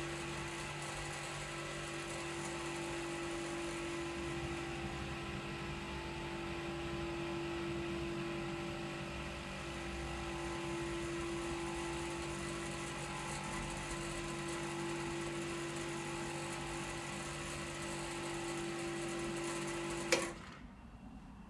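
Clarke Shhh low-noise air compressor running steadily with an even motor hum, then switching off with a sharp click near the end.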